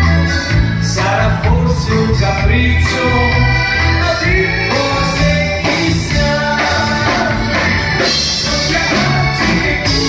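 Live band music: a man singing into a microphone over electric guitar and accordion with a steady low bass line, played loud.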